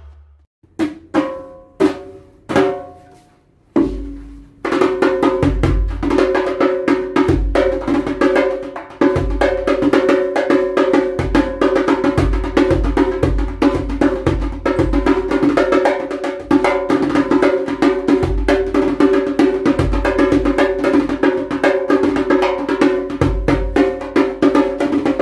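A restored 30-year-old djembe with a new synthetic head, played by hand: a few separate ringing strokes, then from about five seconds in a fast, continuous rhythm of slaps and tones with repeated deep bass strokes.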